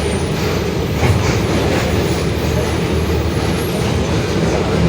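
Mercedes-Benz OF-1721 Bluetec 5 bus running on the road, heard from inside the cabin: a steady low drone of the four-cylinder diesel and drivetrain with the rear differential growling, plus road noise. There is a short louder bump about a second in.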